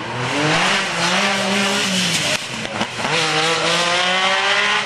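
MG Metro 6R4 rally car's engine pulling hard under full throttle, its note climbing, dropping briefly at a gearchange a little after two seconds, then climbing again and holding.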